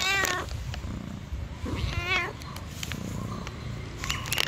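Orange tabby cat meowing twice, each meow about half a second long with a wavering pitch, the second one about two seconds after the first.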